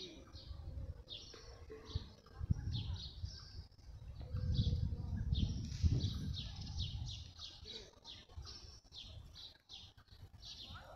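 Small birds chirping repeatedly in short high notes, coming thicker in the second half, over a low rumble that swells for a couple of seconds in the middle.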